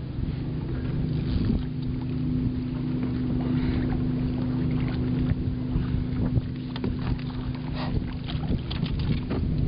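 A steady low motor hum with wind noise on the microphone. Scattered short clicks and knocks come from about seven seconds in.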